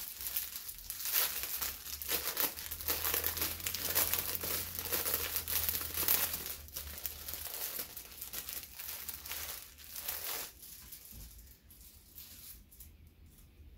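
Clear plastic packaging bag crinkling and rustling as a folded T-shirt is handled and pulled out of it. The crinkling dies down about ten seconds in.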